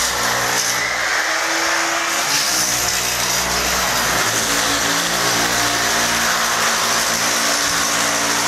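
Corded electric drill running continuously while drilling overhead into the ceiling to fix a gypsum-board ceiling frame, its motor pitch shifting a little under load.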